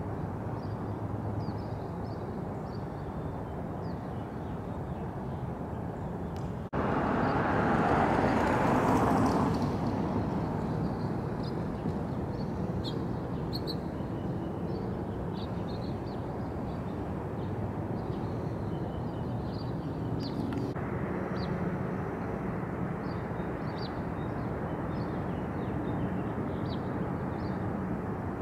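Outdoor ambience: a steady distant rumble with small birds chirping now and then. About seven seconds in it jumps to a louder rushing sound that fades away over the next few seconds.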